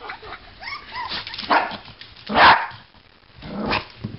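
Small dog barking several times, the loudest bark about halfway through.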